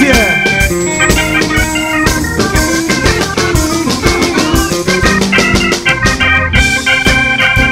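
Live blues band playing an instrumental passage: an organ holds and changes chords over a steady drum beat.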